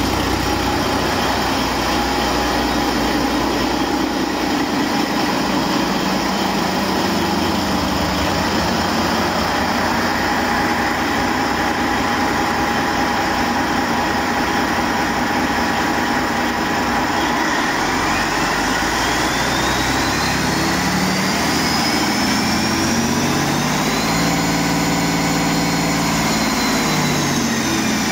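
Detroit Diesel Series 60 12.7-litre inline-six turbo diesel running on a test stand, a loud steady run. In the second half a whine rises in pitch, holds, and starts to fall again near the end.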